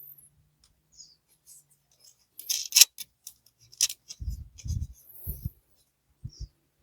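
Hand assembly work with a wrench and small metal parts: scattered sharp metallic clicks and scrapes, loudest a little under halfway through, then a few dull thumps.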